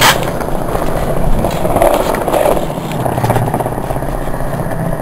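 Skateboard wheels rolling over a rough concrete court, a steady rumble, with a sharp clack of the board at the very start.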